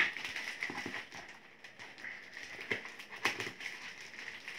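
Plastic courier wrapping on a parcel crinkling and tearing as it is pulled open by hand: irregular crackles and rustles, with sharper snaps at the start and about three seconds in.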